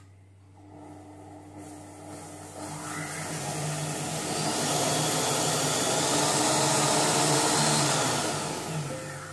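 Monsieur Cuisine Connect kitchen machine's blade spinning up through its speeds to grind sugar into icing sugar: a whirring that builds over the first few seconds, runs loud, then winds down near the end.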